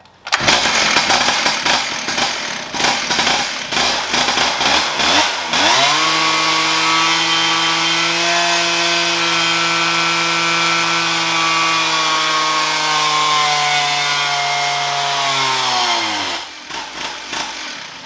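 Big G888 two-stroke chainsaw engine on a dyno, revving unevenly at first. About five seconds in it goes to full throttle, and its high note slowly sags as the dyno brake lugs it down. The throttle is let off with a sharp drop in pitch about 16 seconds in.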